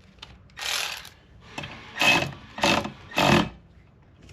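A tool working in four short bursts, one near the start and three close together a couple of seconds in, as a wiper arm is fastened onto the new wiper motor's shaft.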